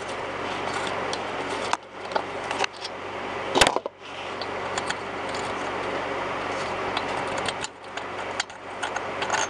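A thread tap being backed out of a bolt hole in a chainsaw's aluminium cylinder and metal tools handled: a steady noise, a sharp click about three and a half seconds in, and scattered light metallic ticks in the last couple of seconds.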